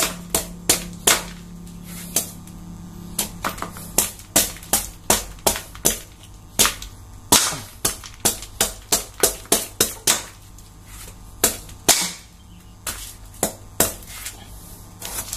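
Kitchen knife chopping into an unripe jackfruit, a quick irregular run of sharp strikes, about two or three a second, with a few short pauses, as slices of the skin are hacked off.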